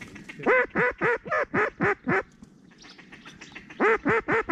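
Duck quacking in quick loud runs of about four quacks a second: about eight in the first two seconds, a pause, then another run starting near the end.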